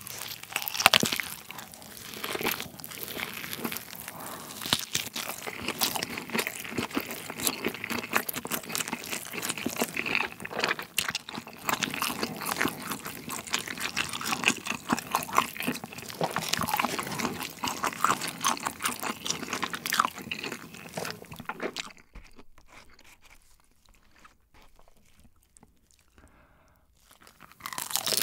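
Close-miked biting and chewing of thick cheese-pizza crust and sausage, a dense run of sharp clicks and crunches. It dies away about 22 seconds in, and a fresh bite starts near the end.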